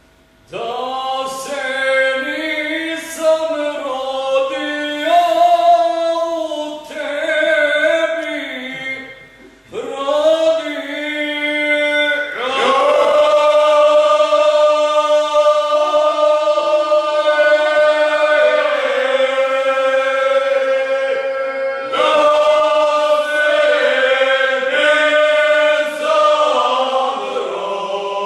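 Men's folk group singing a bećarac unaccompanied, in several voice parts. There is a short break near ten seconds in, then the voices swell into long held chords.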